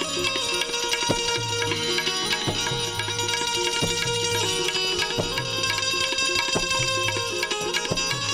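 Instrumental interlude of a Gujarati devotional bhajan. Tabla keeps a steady rhythm, with deep bass strokes and sharp strikes about every second and a half, under sustained melodic instrument tones.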